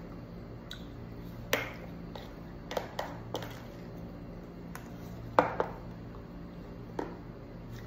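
A metal spoon clicking and tapping against a plastic tub as thick açaí is stirred and scooped. There are about eight sharp clicks at uneven intervals, the loudest about five and a half seconds in, over a steady low hum.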